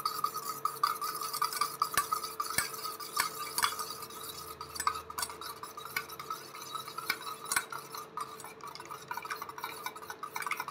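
An egg being beaten in a bowl with a utensil: quick, continuous clicking and tapping against the bowl.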